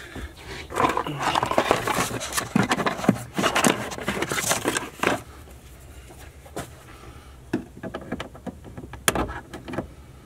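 Handling and prying noises: rustling and scraping for the first few seconds, then scattered light clicks as a plastic trim removal tool works at the plastic pop rivets in a car's trunk-lid trim.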